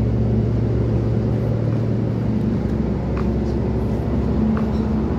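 A ship's engines and machinery droning steadily, heard on deck: a low hum with a few steady tones, the lowest of which fades out about two seconds in.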